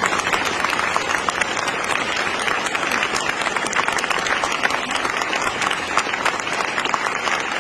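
Audience applauding, a dense, steady clapping of many hands that holds at an even level throughout.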